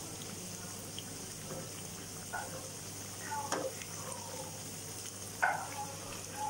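Pastry puffs deep-frying in hot oil with a steady sizzle, and a slotted metal ladle knocking against the pan about twice as the puffs are turned.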